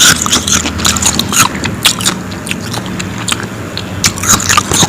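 A person biting and chewing powdery frost ice: a rapid, irregular run of crisp crunches, thickest in the first second and again near the end.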